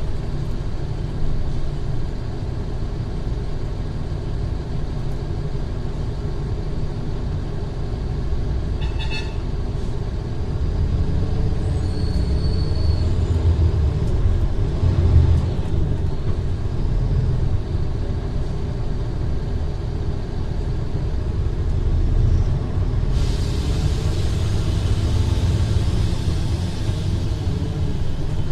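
Mercedes-Benz O500R bus's diesel engine running, a steady low rumble that swells for several seconds around the middle. A steady hiss comes in suddenly about two-thirds of the way through and carries on.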